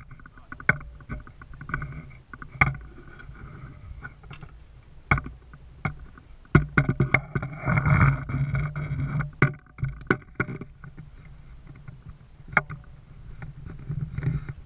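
Knocks and bumps of gear being handled in a small fishing boat, over a low steady hum that swells for a few seconds in the middle.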